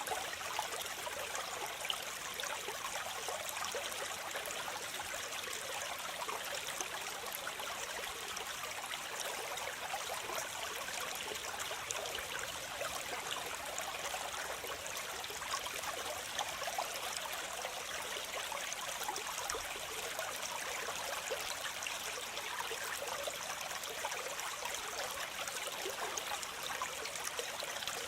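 Water cascading down a waterfall, a steady, unbroken rush that is light in bass.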